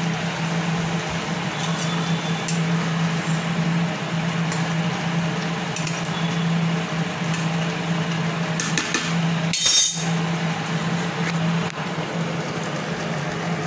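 A metal spoon stirring curry in a cooking pan, clinking and scraping against its sides in a few light knocks, the loudest about ten seconds in. A steady low hum and hiss runs underneath.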